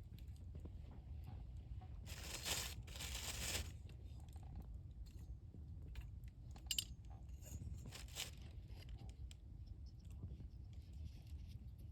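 Wood campfire crackling, with scattered sharp pops. About two seconds in there are two short spells of louder crunching and rustling.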